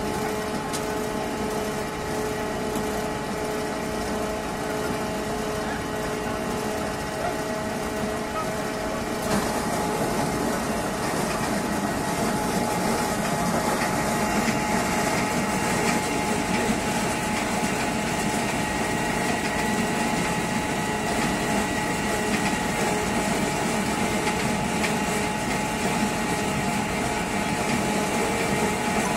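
Mobile apple press running: a steady machine hum from its motor and belt-driven drive. About nine seconds in it grows a little louder and harsher as the mill grinds apples into pulp for pressing.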